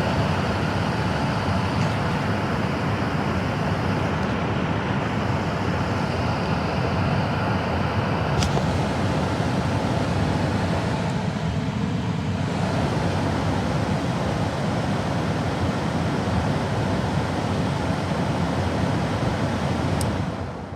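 Steady, loud rushing noise with a strong low rumble, broken by two sharp clicks, one about eight seconds in and one near the end.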